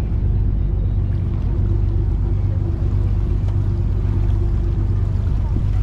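Tour boat's engine running steadily, a constant low hum heard from on board.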